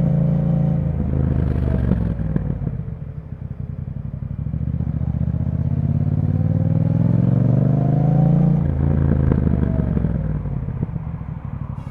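2021 Yamaha MT-07 parallel-twin engine running through an aftermarket Akrapovic exhaust, heard from the bike while riding. The engine note drops as the bike slows about a second in, climbs steadily for about four seconds under acceleration, then falls again as it slows near the end.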